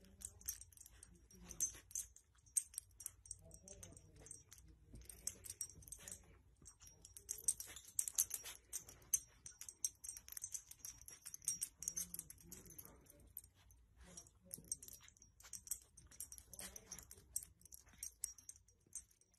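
Faint, irregular rustling and small clicks of a soft blanket being nudged and tugged by a dog.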